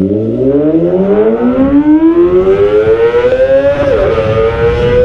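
Kawasaki ZX-25R's inline-four engine accelerating hard, its pitch climbing steadily into a high whine for about four seconds. A quick dip about four seconds in as it shifts up, then it runs on at high revs.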